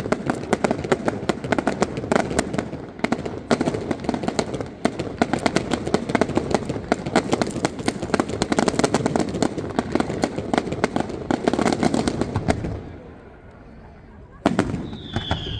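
Aerial fireworks bursting in a dense, rapid crackle of pops and bangs that runs for about twelve seconds, then drops to a lull. Near the end comes one sharp bang, followed by a high whistle that slides down in pitch.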